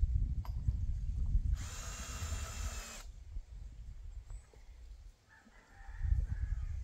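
Cordless drill run once for about a second and a half, driving a screw into a timber board, starting and stopping abruptly. Near the end, faint hen clucking over a low rumble.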